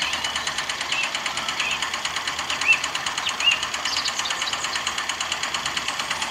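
The small electric motor and gears of a miniature toy cement mixer running steadily, turning the drum of wet cement with a fast, even rattle. Two short high squeaks come through it near the middle.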